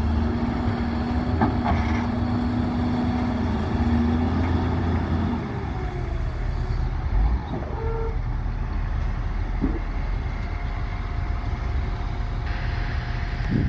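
Heavy diesel machinery running steadily, with a low steady tone over the engine for the first five seconds or so that then stops, and a few short knocks.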